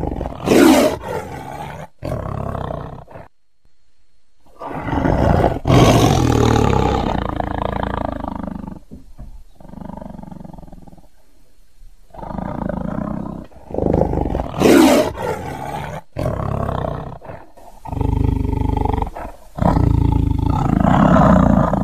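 A tiger roaring and growling in a series of about half a dozen calls with short gaps between them. Some calls cut off abruptly where the recorded clips are edited together.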